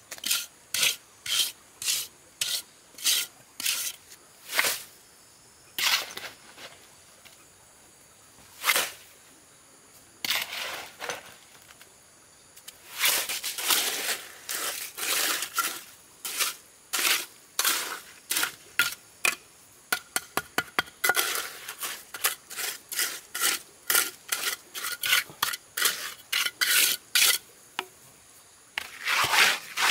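Steel trowel scraping and smoothing wet cement mortar in short strokes. The strokes come in ones and twos at first, thin out for a few seconds, then come in quick runs.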